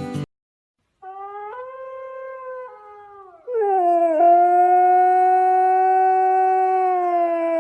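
Dog howling: a quieter wavering howl begins about a second in, followed about two seconds later by a much louder long held howl that sinks slightly in pitch near the end.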